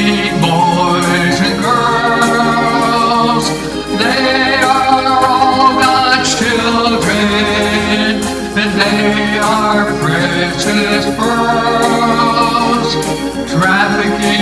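A man singing a slow gospel-style song in long held notes with vibrato, over chords from a Korg electronic keyboard.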